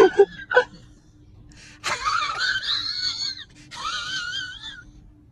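A high-pitched voice giving two long wavering wails, the second shorter, after a few short sounds at the start.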